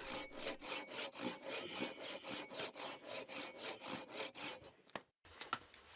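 Hand saw cutting through a log of firewood in quick, even back-and-forth strokes, about four or five a second. The sawing stops near the end.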